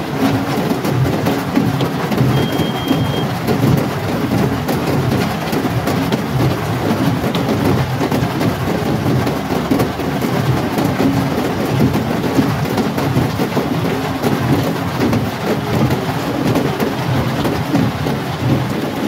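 Heavy rain hitting a car's roof and windshield, heard from inside the cabin as a dense, steady rush.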